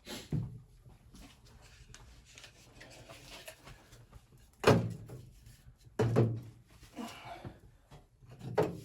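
A series of about five heavy thuds, spaced irregularly, the loudest a little past the middle.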